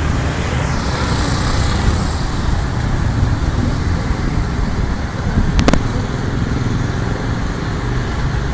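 Steady street traffic noise with a heavy low rumble throughout, and a single sharp click a little before six seconds in.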